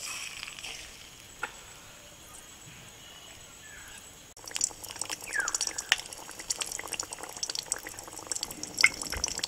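Egg-filled moghlai paratha frying in hot oil in a metal kadai. The oil sizzles as the paratha goes in, then crackles and spatters densely from about four and a half seconds in.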